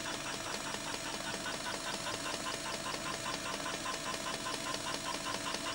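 Bosch Fernseh BCN 50 one-inch B-format videotape machine running tape in slow motion: a steady, rapid mechanical ticking, about seven ticks a second.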